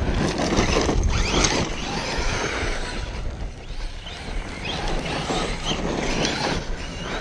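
Electric RC monster truck's brushless motor whining, rising and falling in pitch as it is throttled up and eased off on dirt, over low wind rumble on the microphone.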